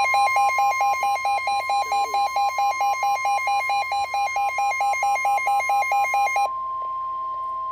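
NOAA Weather Radio Warning Alarm Tone: a steady, loud, single high tone heralding a severe thunderstorm warning. For the first six and a half seconds a buzzy electronic beep pulses over it, about four and a half beeps a second, then stops, leaving the steady tone alone.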